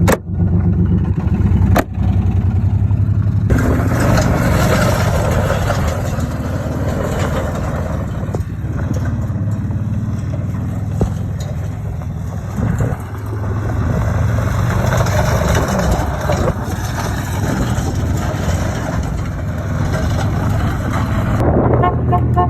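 Rod-knocking Oldsmobile engine running while the car is driven, a steady low drone. A loud rushing noise joins it about three and a half seconds in and eases off near the end.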